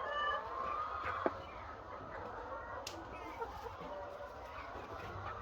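A large flock of laying hens clucking and calling over one another, busiest in the first second or so. Two sharp clicks, about a second in and near three seconds.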